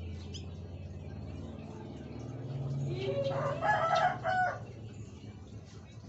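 A rooster crowing once, starting about three seconds in and lasting about a second and a half, over a steady low hum.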